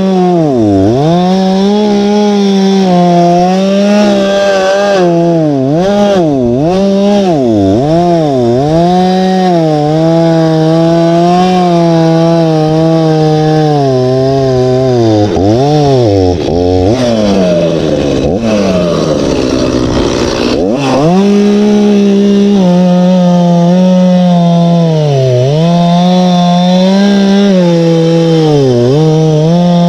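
Two-stroke petrol chainsaw running at high revs while cutting through a log, its engine note dipping and recovering over and over as the chain bites into the wood. About two-thirds of the way through it drags down hard for a few seconds with a rough rasping sound, then picks back up.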